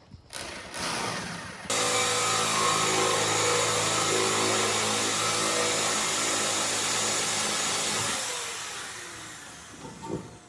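An electric power tool switched on, running steadily at full speed for about six seconds, then switched off and winding down with a falling pitch.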